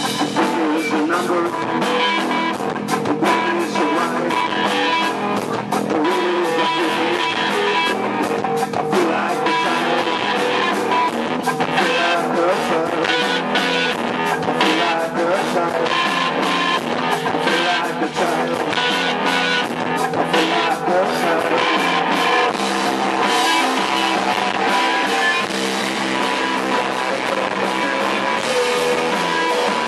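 Rock music with guitar and drums, and what may be singing.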